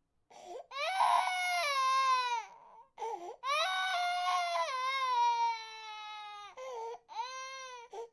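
Baby crying sound effect: a high-pitched wail that falls in pitch at its end, then a longer wail, then a shorter one, with brief catching breaths between them.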